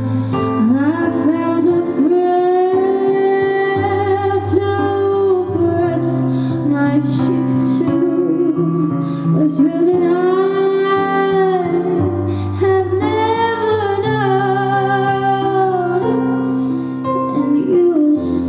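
A woman singing long held notes with vibrato and slides over sustained keyboard chords.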